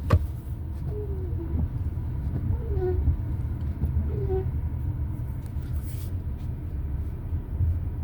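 Steady low road and engine rumble of a car driving, heard from inside the cabin, with a sharp click right at the start.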